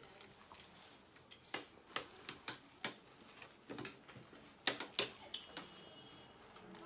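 Spoons and forks clinking and scraping against ceramic plates: scattered, irregular sharp clicks, the loudest pair about five seconds in.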